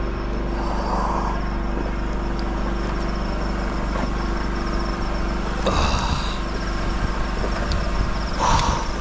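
An engine running steadily with a low, even drone. Three brief rustling noises come over it: about a second in, near six seconds and just before the end.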